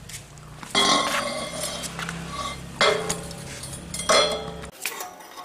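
Metal struck three times, hard, each strike ringing on with several clear tones for about a second. A low steady hum underneath cuts off near the end.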